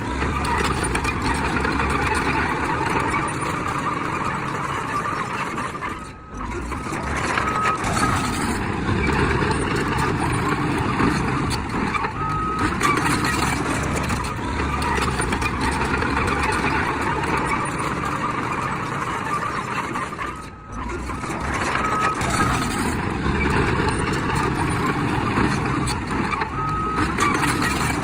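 Heavy earthmoving machinery, a bulldozer and dump trucks, running under load with a dense engine and track noise. Short high reversing beeps sound now and then. The noise drops out briefly twice.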